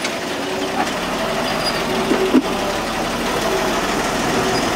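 Toyota Land Cruiser engine idling in gear as the truck crawls over trail rocks without throttle. There is one sharp knock about two and a half seconds in.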